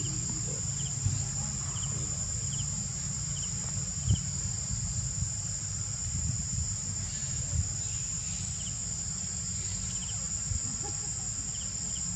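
Forest insects making a steady high-pitched drone, with a short double chirp repeating every second or so, over a low steady rumble. A few soft thumps, the loudest about four seconds in.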